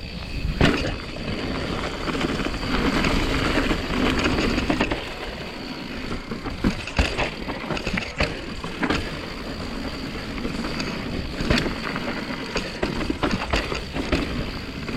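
Mountain bike rolling fast down a dirt trail: steady tyre and wind noise, broken by sharp knocks and rattles as the bike hits bumps.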